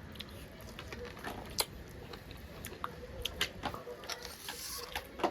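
Eating noises from chewing buffalo leg meat: scattered wet clicks and smacks at irregular intervals, with a sharper click about a second and a half in and a few more close together around the middle, over a faint steady hum.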